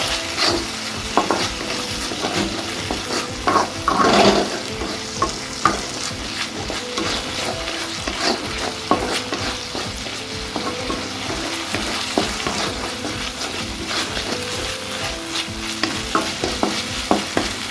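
Onion, green chilli and sauce masala sizzling in a pan while a spatula stirs it, with frequent scrapes and taps on the pan and a louder clatter about four seconds in.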